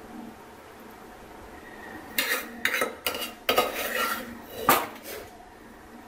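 A utensil clinking and scraping against a steel pot as cooked chicken is served out onto a plate. There is a run of clinks and scrapes starting about two seconds in, with the sharpest clink just before the five-second mark.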